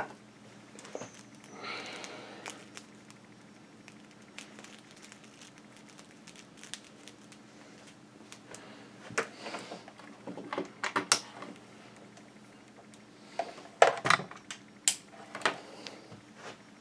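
Ethernet cable being handled and plugged in: a soft rustle as it is uncoiled, then scattered plastic clicks and knocks in two short clusters as its plugs go into the sockets.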